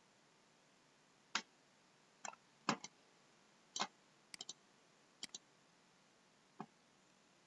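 Computer mouse clicking: sharp single clicks and several quick pairs of clicks, against a very quiet background.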